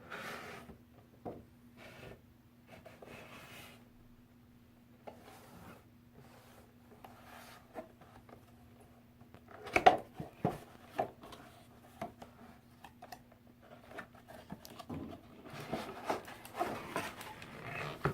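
Hands opening a doll's cardboard and plastic retail packaging: rustling and scattered clicks and taps, with the sharpest cluster about ten seconds in, over a faint steady hum.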